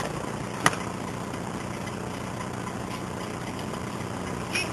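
Steady low background hum, engine-like, with two short sharp clicks in the first second.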